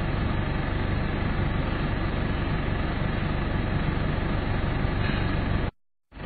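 Steady low noise of a car running, heard from inside the cabin; it cuts out for a moment near the end.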